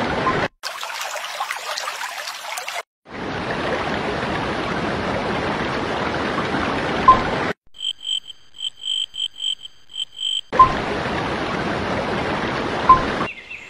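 Cut-together water sounds: steady rushing, flowing water with a crackly high hiss early on, broken by brief silent gaps. In the middle, a run of about ten evenly spaced high chirps, roughly three a second, takes over for nearly three seconds before the water returns.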